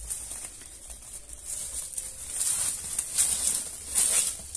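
Footsteps in flip-flops crunching on loose crushed-stone gravel, the steps louder in the second half.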